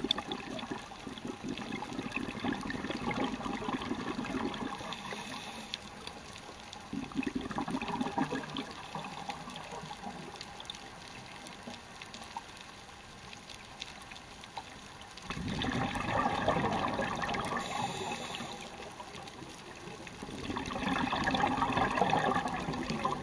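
Scuba diver breathing through a regulator, heard on an underwater camera: four bursts of bubbling exhaled air several seconds apart, with a short hiss of inhalation between them.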